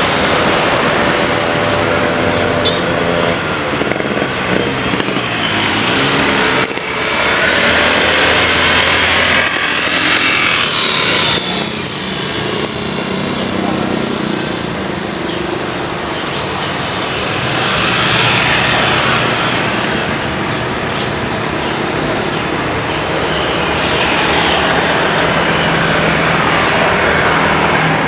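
Loud, steady engine noise from aircraft or road vehicles, a dense rush that swells and eases a few times.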